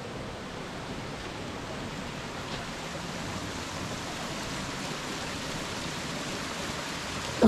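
Small waterfall spilling down a rock face into a shallow pool: a steady rushing splash of water.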